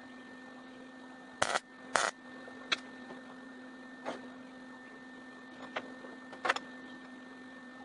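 Short tack welds being struck over a steady electrical hum: two brief bursts about a second and a half in, half a second apart, then a few shorter ticks through the rest.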